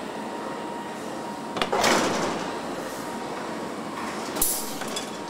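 Assembly-plant floor noise: a steady background rush of machinery, broken by a sharp knock and a short, loud rushing burst about one and a half seconds in, and another knock with a brief rush about four and a half seconds in.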